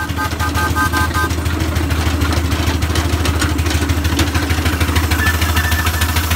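6-inch scale Samson steam traction engine running along the road: a fast, even run of exhaust beats and mechanical clatter over a steady low rumble.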